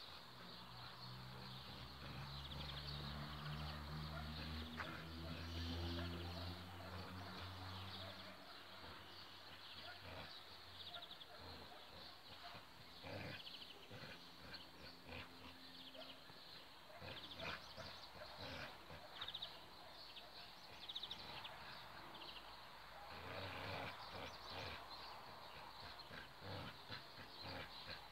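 Dogs growling in play during a tug-of-war: a long low growl for about the first eight seconds, then quieter, with scattered clicks and rustles.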